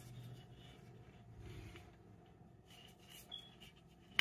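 Faint rustling and handling noises as a metal tin of olive oil is picked up, with a few light clicks and one sharp click at the very end.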